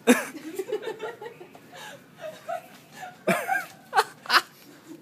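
People laughing in short bursts, the loudest about a second before the end.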